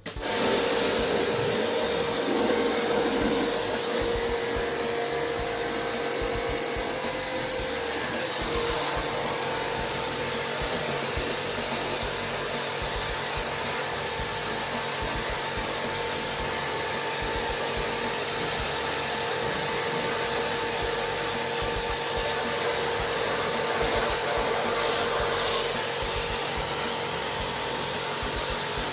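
A small electric machine running steadily, a noisy hum with a held whine, starting suddenly at the outset.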